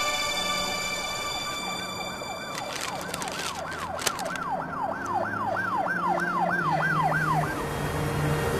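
Emergency siren in a fast yelp, rising and falling about twice a second; it starts faint, grows clearer and stops near the end. Low sustained soundtrack drone underneath, and a crinkle of handled paper about three to four seconds in.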